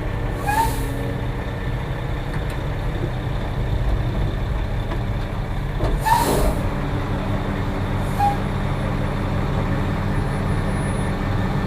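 Concrete mixer truck's diesel engine running steadily, with two short bursts of air hiss, about half a second in and about six seconds in, from the truck's air system.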